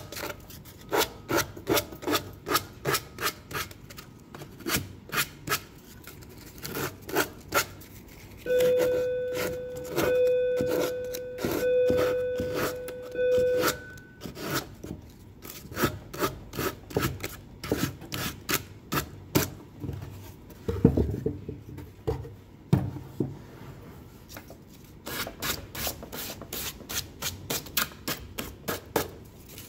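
Sandpaper on a hand sanding block rubbed back and forth along the edges of a pine box, in quick scratchy strokes of about two or three a second. About a third of the way in, a steady buzzing tone sounds over the strokes for about five seconds.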